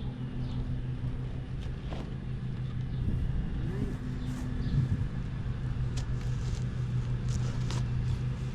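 A steady low mechanical hum with scattered light clicks and knocks from handling the speaker box.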